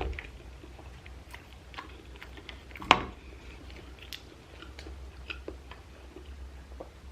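Close-miked chewing and mouth sounds of someone eating, with scattered small clicks and one sharper, louder click about three seconds in. A low steady hum runs underneath.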